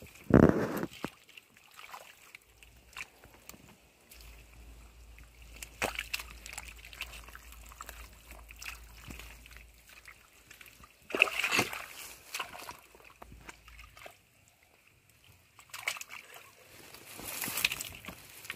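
Muddy water sloshing and squelching in short irregular bursts as bare feet and hands work through a shallow mud puddle, loudest just after the start and again about eleven seconds in.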